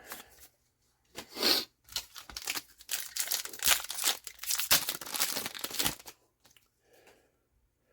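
Foil booster pack wrapper being torn open and crinkled: a run of rapid crackling tears lasting about five seconds, dying away to a few faint rustles near the end.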